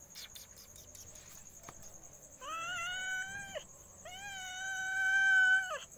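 Spotted tabby domestic cat meowing: two long, drawn-out meows, the second longer and louder than the first.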